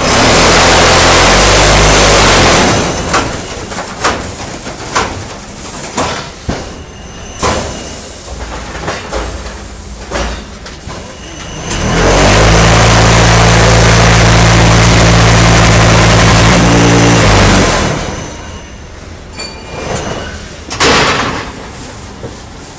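Automatic concrete block and paving-stone making machine at work: two long, very loud spells of steady low rumbling hum, one at the start and another from about twelve to eighteen seconds in, with repeated metal knocks and clanks of the pallet-handling mechanism in between.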